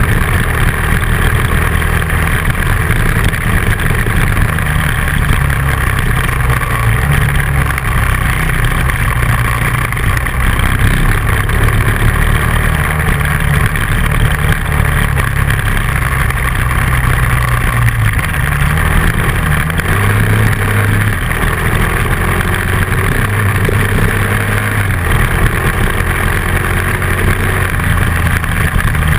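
Dual-sport motorcycle engine running while riding a dirt road, its pitch dipping and rising a few times with the throttle, over a steady rushing noise.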